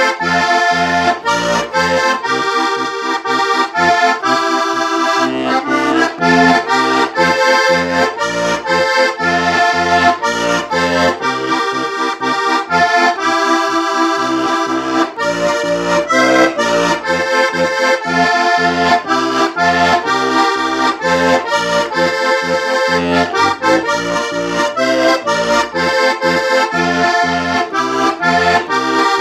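Stanček Rudolf heligonka (diatonic button accordion) playing a folk tune: a melody on the treble buttons over a steady alternating bass-and-chord accompaniment from the bass buttons.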